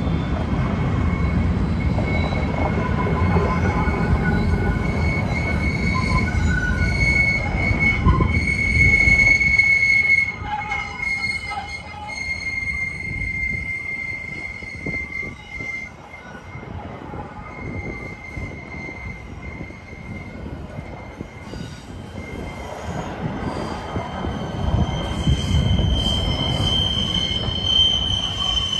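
Freight train rolling past with its wheels squealing in a steady high tone. The low rumble of the cars is loud at first, falls off about ten seconds in, and builds again near the end, when the squeal shifts to a higher pitch.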